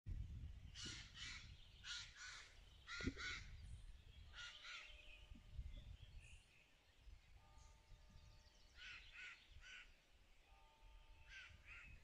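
Crows cawing: harsh calls in quick runs of two or three, repeated several times with pauses between runs.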